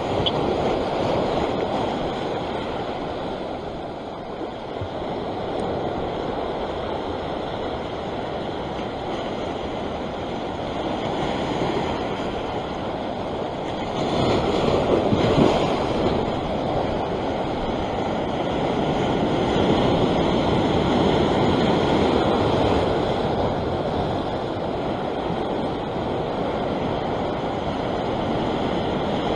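Sea swell surging and washing over a rock ledge, foaming as it breaks and drains, with a bigger surge about halfway through.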